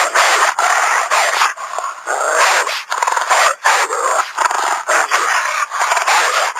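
Dire wolf creature sound effect: a run of harsh, rasping growls with no clear pitch, broken by short gaps about twice a second.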